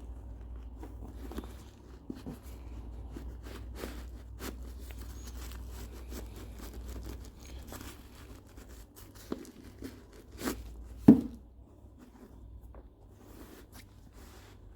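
Shoebox and paper being handled: rustling and crinkling with scattered clicks and taps, and a louder knock about eleven seconds in, over a low steady hum.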